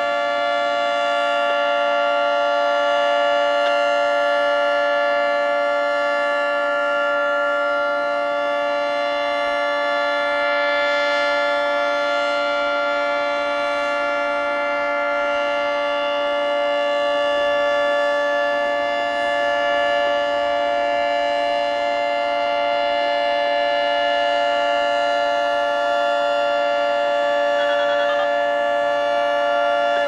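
Federal Signal 3T22 three-tone storm warning siren sounding its steady alert signal at full speed for a monthly siren test: a loud, held chord of several pitches that does not rise or fall.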